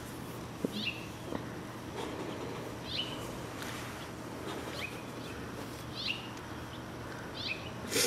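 A squirrel scolding from a tree: short, high chirps that slide down in pitch, repeated every couple of seconds.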